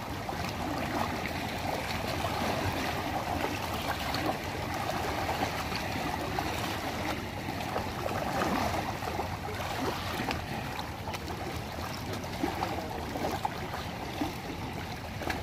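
Shallow seawater lapping and trickling among shoreline rocks: a steady, even wash of small wavelets.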